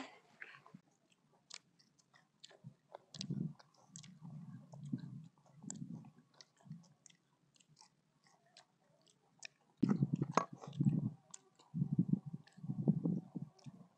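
Close-up chewing and crunching of cooked crickets and beetles, heard as clusters of dull chews with small sharp crunches, in two spells with a quieter gap in the middle.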